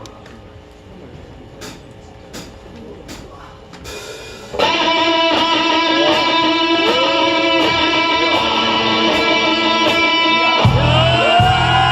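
Live rock band opening a song: after a few seconds of sharp, evenly spaced ticks, an electric guitar strikes a loud sustained chord about four and a half seconds in and rings on with bent notes. Near the end the bass and drums come in with a pulsing low end.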